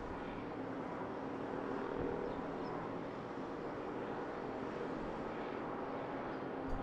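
Steady outdoor hum of distant traffic, with a faint low drone running through it.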